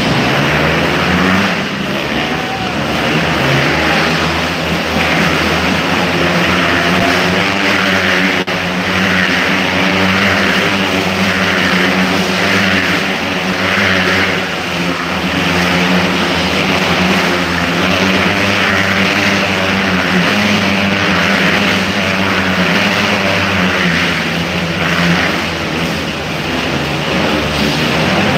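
Motorcycles running at high revs as they circle inside a steel mesh globe of death, their engine sound swelling and fading about once a second as they loop.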